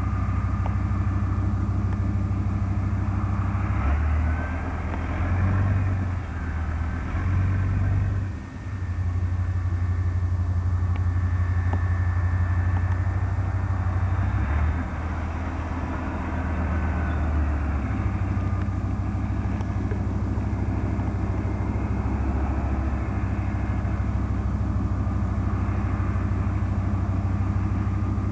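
Tracked armoured recovery vehicle's engine running hard as it drives through mud. The engine note rises and falls, easing off briefly about eight seconds in.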